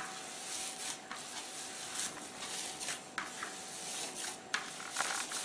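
Hands kneading fresh chhena in a plastic bowl, the soft cheese rubbed and pressed smooth: faint, irregular rubbing and squishing strokes.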